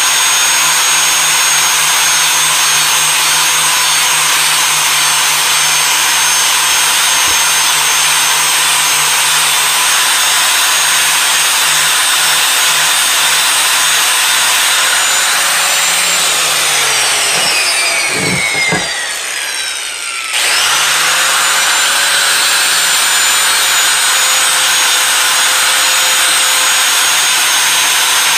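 Electric angle grinder with its wheel against the steel head of an antique hatchet, grinding off rust and pitting. It runs with a steady high whine. About two-thirds of the way in, the motor winds down over a few seconds with a couple of knocks, cuts out, then spins back up to full speed and grinding resumes.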